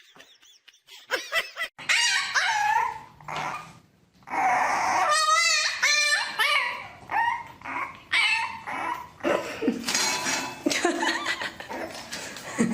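A dog vocalising in a string of pitched calls, some short and some drawn out, whose pitch bends up and down, with a wavering call about halfway through.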